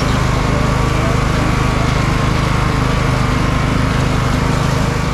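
Riding lawn mower engine, cutting deck removed, running steadily under way at an even pitch.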